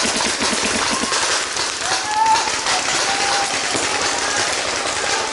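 Footsteps and rustling of clothing and gear close to the microphone as a person moves along a forest trail, with distant voices calling now and then.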